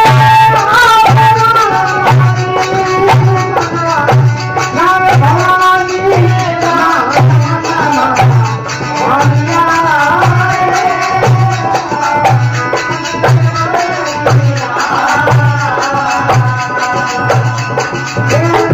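Rajasthani Marwari devotional folk music (desi bhajan): a wavering melody over a steady low drum beat about once a second, with rattling percussion.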